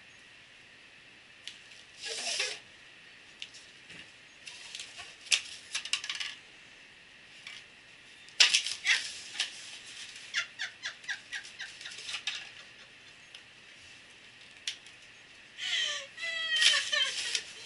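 Large dog nosing, pushing and crushing disposable cups on a hard floor to get at the treats: scattered crinkles and crunches, most of them close together from about eight to twelve seconds in. Near the end comes a high, wavering voice.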